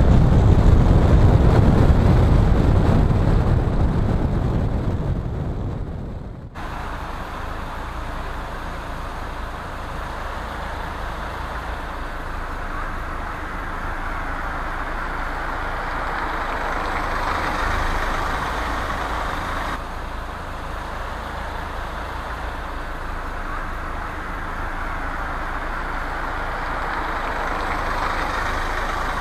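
Road noise inside a car's cabin driving on wet roads: a heavy low rumble for the first several seconds cuts off abruptly about six seconds in, giving way to a steadier, quieter hiss and hum of tyres and engine.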